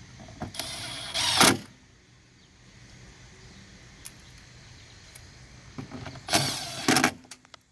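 Power window motor in a Dodge Ram pickup's rear door running in two short bursts, one about a second in and one about five seconds later, each lasting about a second.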